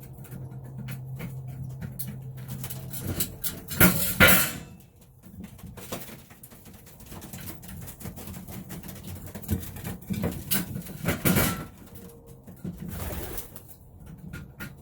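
Young racing pigeons cooing in a loft, with a few louder bursts of noise about four seconds in, around eleven seconds, and near the end.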